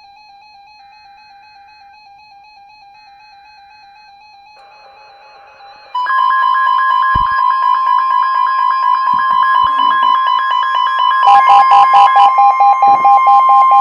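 NOAA weather radio going into alert: after about six seconds of faint steady tones, a loud, steady 1050 Hz warning alarm tone starts suddenly with a regular pulsing pattern over it. About eleven seconds in, a pulsing alarm beep joins it.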